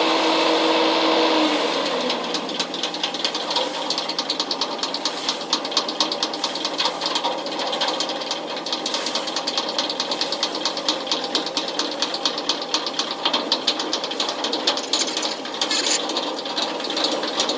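Gut ship's diesel engine running with a fast, steady clatter. At the start, a steady hum slides down and stops about a second and a half in.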